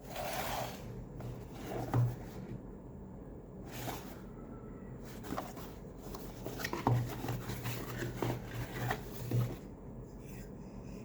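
Quiet handling sounds: a few light clicks and knocks with soft rubbing, and a faint low hum that comes and goes.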